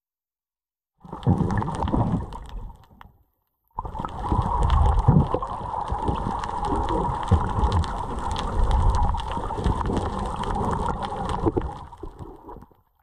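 Muffled underwater sound picked up through an action camera's waterproof housing: water rushing and gurgling against the case, with a steady hum underneath. It starts about a second in, cuts out briefly after a couple of seconds, and stops just before the end.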